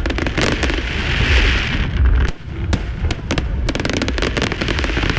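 Aerial fireworks display: rapid overlapping bangs and crackles over a continuous low rumble of booms, with a hissing spray about a second in, and the crackling growing denser near the end.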